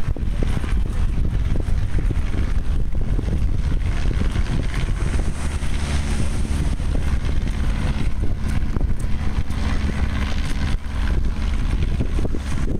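Steady drone of a small banner-towing propeller plane's engine overhead, mixed with wind rumbling on the microphone.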